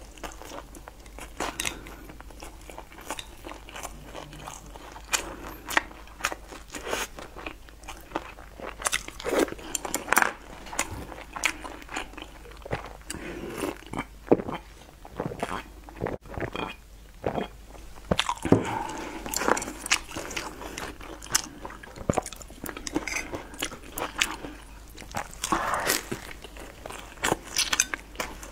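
Close-miked mukbang eating: one person biting and chewing seafood, an irregular run of crisp crunches and clicks with soft mouth noises between them.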